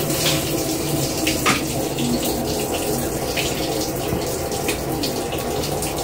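Maytag Commercial Technology top-load washer filling its tub with water during the factory calibration cycle: a steady rush of water pouring in, with a few brief splashes.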